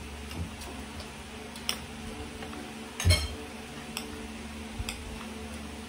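Cutlery clinking against plates and bowls: a few scattered light clicks, with one louder knock about three seconds in.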